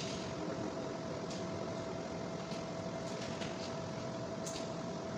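Steady mechanical hum with one constant tone running through it. Over it come about three faint short scrapes as a utility knife cuts the insulation of electrical cable.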